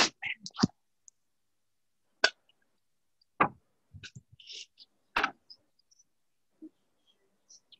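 A shovel moving soil into an open grave: three sharp thuds spaced a second or two apart, with a few smaller knocks and a short scrape between them, as earth is scooped and dropped in.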